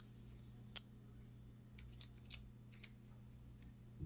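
Near silence over a steady low hum, with a sharp click about a second in and a few faint ticks and rustles of Pokémon cards and packs being handled.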